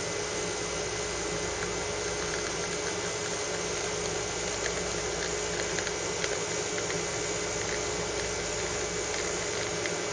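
Steam wand of a Bezzera Medea espresso machine steaming milk: a steady hiss with a steady whistling tone, unbroken throughout.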